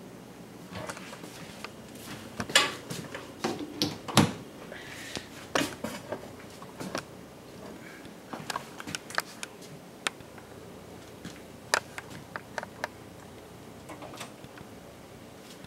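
Irregular knocks and clicks of kitchen handling, things being picked up, moved and set down on a counter, the two loudest knocks about two and a half and four seconds in.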